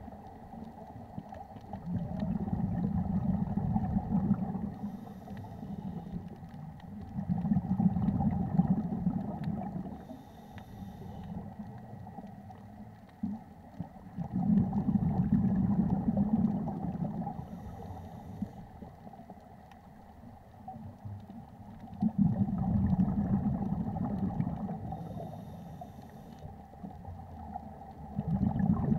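Scuba breathing through a demand regulator underwater: a brief hiss on each inhale, then a long, loud bubbling rumble as the exhaled air leaves the regulator, in a slow, even cycle of about one breath every six to seven seconds.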